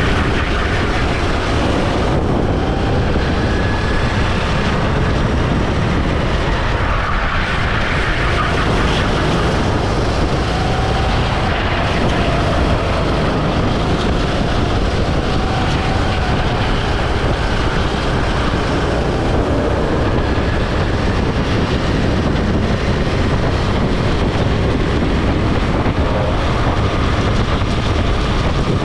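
Go-kart engine running hard at racing speed, heard from the kart's own onboard camera, its pitch rising and falling with throttle through the corners, under a heavy rush of wind on the microphone.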